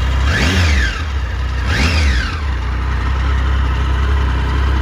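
2015 Triumph Sprint GT 1050's three-cylinder engine on its standard exhaust, blipped twice from idle. Each rev rises and falls within about a second, then the engine settles back to a steady idle.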